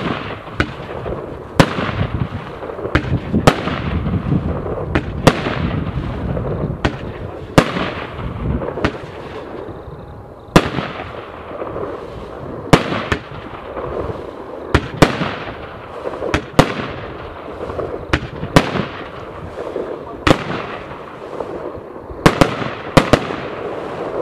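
Evolution Fireworks 'Orion' firework barrage cake firing. A sharp bang comes about every second or two as each shot bursts, over dense continuous crackling from the spark clouds.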